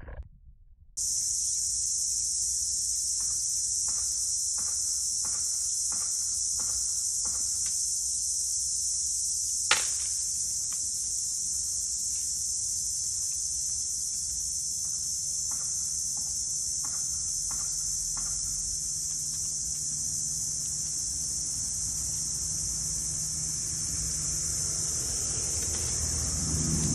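Steady high-pitched insect chorus, like crickets, starting about a second in and cutting off suddenly at the end, with faint scattered taps and one sharp click about ten seconds in.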